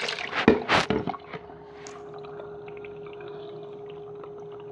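Water rushing through a handmade modelling-clay model toilet as it flushes: a loud splashing gush in the first second, then a quieter steady trickle as the bowl drains.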